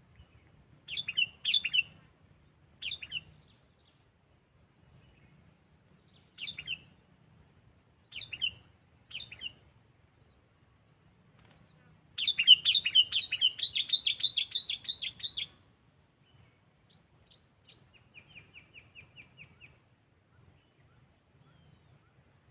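Sooty-headed bulbul calling: several short, sharp call phrases a second or two apart, then a long rapid run of chattering notes lasting about three seconds. Near the end comes a fainter, evenly spaced series of quick notes.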